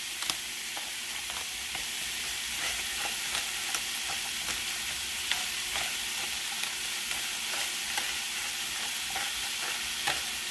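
Shrimp frying in garlic oil in a skillet: a steady sizzle with scattered small pops.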